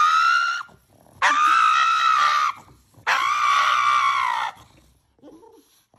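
A pug screaming in protest at having its nails clipped: three long, high-pitched screams, the first ending under a second in, the next two about a second and a half each.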